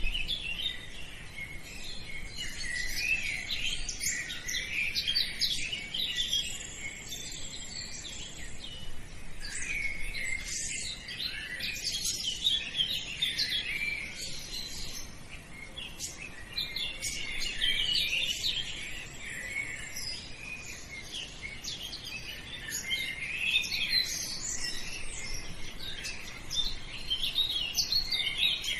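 A flock of birds chirping and twittering, many high, quick calls overlapping.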